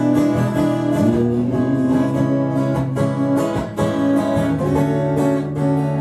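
Acoustic guitar strummed, its chords changing a few times.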